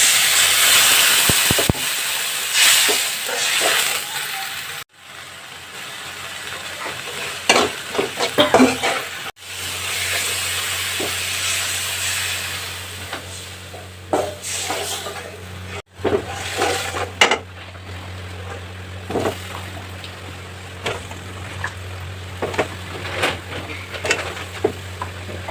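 Food sizzling in hot oil in a pan while a spatula stirs and scrapes against it, with a steady hiss under irregular scraping strokes. The sound cuts out abruptly three times.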